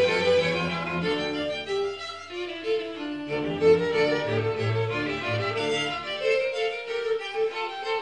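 Live string ensemble of violins, cello and double bass playing with long held bowed notes; the low bass notes drop out for a while twice, about two seconds in and again from about six seconds.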